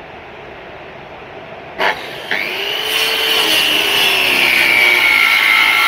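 Electric circular saw starting about two seconds in and cross-cutting a bangkirai hardwood plank; its high motor whine rises briefly, then slowly sags in pitch under load as the blade works through the wood.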